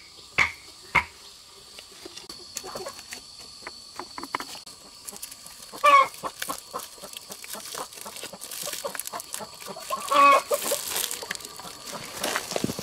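Chickens clucking, with two louder calls about six and ten seconds in. There are two sharp knocks in the first second.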